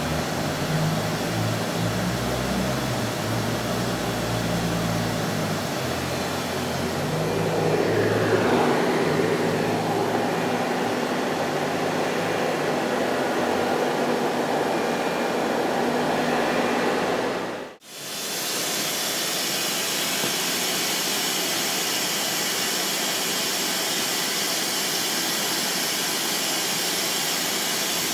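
Trak TMC7 vertical machining center running, its motors humming at shifting pitches with a falling whine about eight seconds in. After a sudden cut partway through comes a steady even hiss of machine noise.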